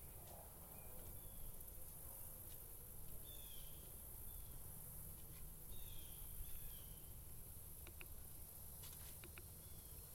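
Swamp forest ambience: a bird repeats short, falling two-note calls every two to three seconds over a steady high insect buzz. A few faint clicks come near the end.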